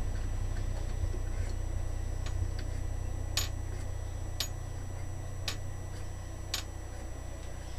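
Sharp metallic clicks, four about a second apart in the second half with fainter ones earlier, as the lathe chuck is turned by hand with its key to drive a tap into brass, over a steady low hum.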